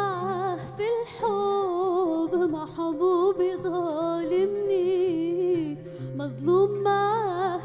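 A woman singing a long, ornamented Arabic vocal line, her voice bending and wavering between held notes with vibrato, with two short breaks, one about a second in and one near six seconds. Low oud notes sound beneath her voice.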